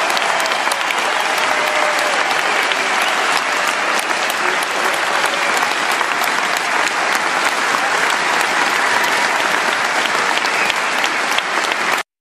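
Large concert crowd applauding steadily, with a brief sharp dropout at an edit near the end.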